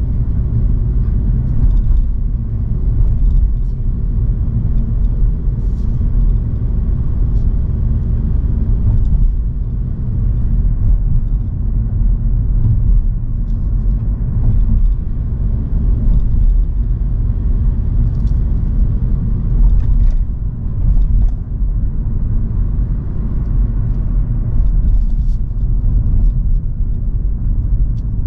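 A car driving on the road, with a steady low rumble of engine and tyre noise.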